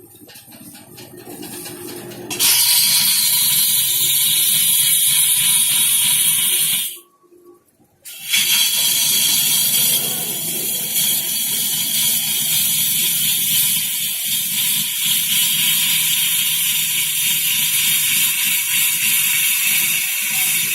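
Wood lathe turning, a cutting tool shearing the spinning wood with a steady loud hiss that starts abruptly a couple of seconds in, cuts out for about a second near the middle, and then resumes.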